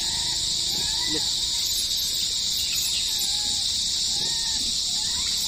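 Steady high-pitched drone of insects, with a few faint short calls that rise and fall.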